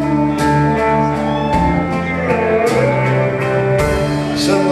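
Live rock band playing an instrumental stretch between vocal lines: guitars ringing over a steady bass.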